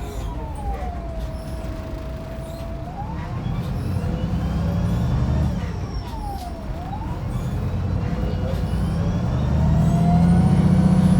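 Wright Pulsar 2 single-deck bus heard on board, its engine running under load. Over the rumble a whine glides down, rises again, dips sharply about six seconds in and climbs once more, while the engine grows louder near the end as the bus pulls hard.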